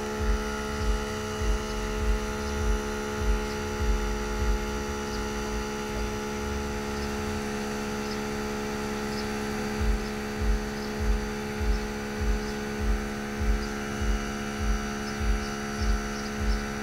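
Xiaomi 70mai portable car air compressor running steadily as it inflates a collapsible space-saver spare tyre, a steady pitched hum. A low pulse repeats about one and a half to two times a second, stopping for about five seconds in the middle.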